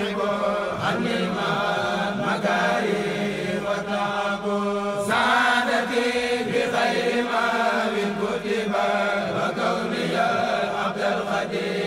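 Chanting of an Arabic devotional poem to God and the Prophet, voices carrying a melody over a steady low drone.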